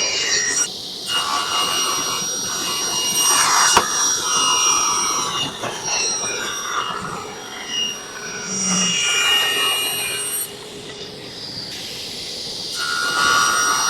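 Table saw running and ripping poplar boards into narrow strips, the blade's high whine rising and easing as the wood is fed through, with a quieter spell about two-thirds of the way in.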